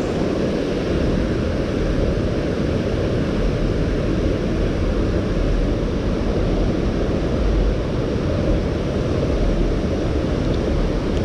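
Steady low rumble of wind buffeting the microphone, with no other clear sound standing out.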